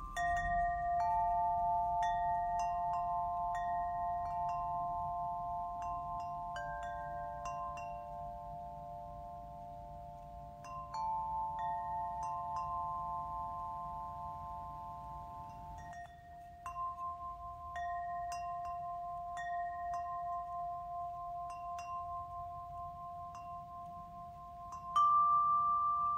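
Small bells or chimes ringing in a slow meditative pattern: several long tones overlap and slowly fade, with light high tinkles struck every second or so. New, louder tones come in about eleven and sixteen seconds in, and again near the end.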